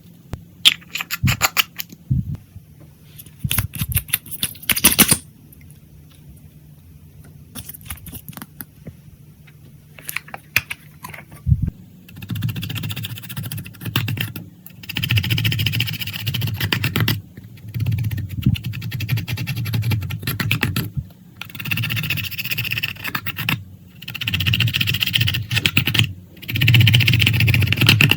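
Clear slime being worked by hand with makeup mixed in. Bursts of sharp crackling clicks come first, then about halfway through it settles into repeated squishing strokes, one every second or two.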